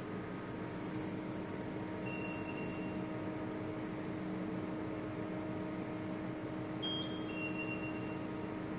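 Zwick Rockwell hardness tester humming steadily while it applies the test load. A short high beep comes about two seconds in, and two more follow close together near the end.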